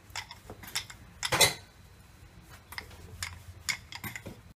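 A thin wooden rolling pin rolling out dough on a granite counter, with scattered knocks and clinks, the loudest a little under one and a half seconds in.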